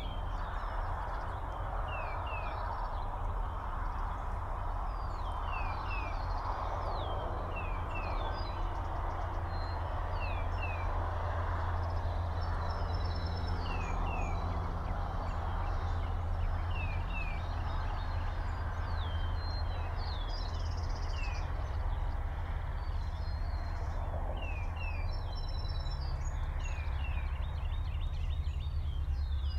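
Small birds chirping and calling all around, in many short, high, downward-slurred notes, over a steady low hum and a soft hiss.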